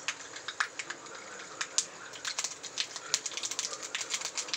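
Mustard seeds popping in hot oil in a kadai: sharp, irregular crackles over a faint sizzle, coming faster from about halfway through. This is the spluttering of the tempering (tadka) stage, which shows the oil is hot enough.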